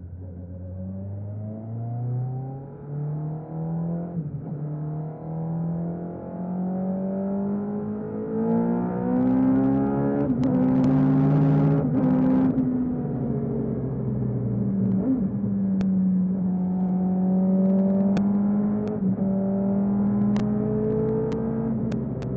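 A MK Indy car's Suzuki Hayabusa four-cylinder motorcycle engine heard onboard under way. The revs climb and drop several times, swell to the loudest run with a rushing hiss about ten to twelve seconds in, then settle to a steady cruise. A few sharp clicks come in the second half.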